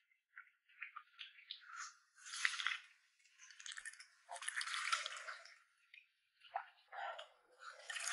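Close-up wet eating sounds: food being chewed and slurped in irregular bursts, the loudest about two and a half and five seconds in.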